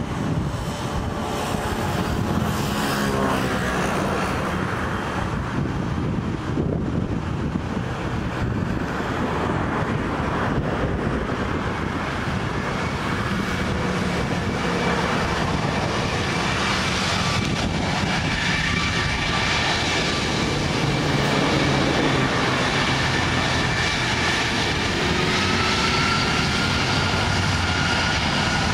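Boeing 747-400's four turbofan engines spooling up for the takeoff roll: a steady rush of jet noise that grows gradually louder, with a whine that rises in pitch near the end.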